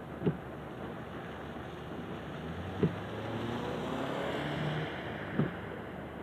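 A car or other vehicle passes, its engine note gliding and swelling in the middle, over a steady hiss of rain. Three short, sharp thumps come at even intervals, about every two and a half seconds.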